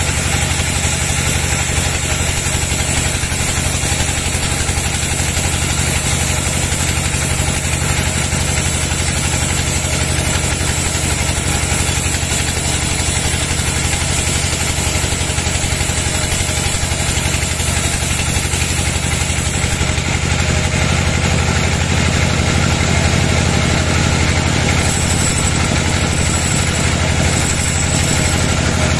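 Log band saw running steadily while its blade rips lengthwise through a large log: a loud, constant low machine hum under the hiss of the blade in the wood.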